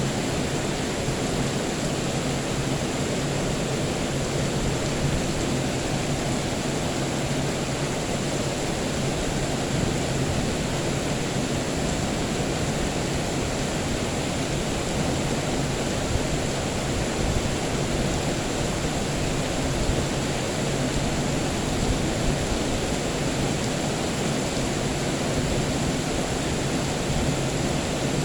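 Steady rain, an even hiss of falling water with no distinct thunderclaps.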